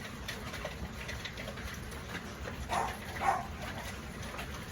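Hail falling steadily, a continuous patter with scattered small hits. About three seconds in, two short, louder, higher-pitched cries cut through it.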